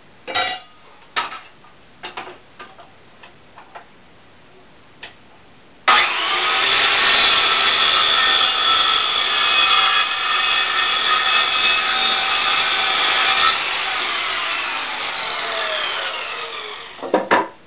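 Handheld circular saw cutting a pine board along a clamped straight-edge guide. It comes in with a few knocks and clicks of handling. About six seconds in the saw starts suddenly and cuts steadily for about seven seconds, then its blade winds down with a falling whine, and a couple of knocks follow near the end.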